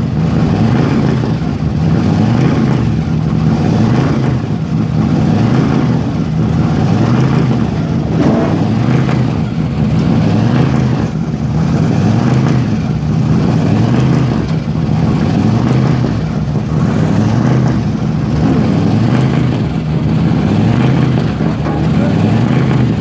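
Supercharged car engine idling loudly with a lumpy, hunting rhythm, its pitch swelling and sagging about every second and a half.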